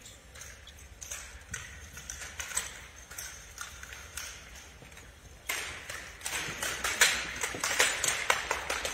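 Drill rifles slapped, spun and caught by a drill team, giving sharp wooden-and-metal clicks and knocks that echo in a large gym. They come sparsely at first, then in quick succession from about five and a half seconds in.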